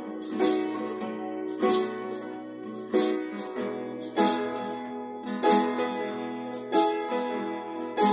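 Instrumental break of a slow country ballad: sustained keyboard chords over a light percussion hit about every one and a quarter seconds.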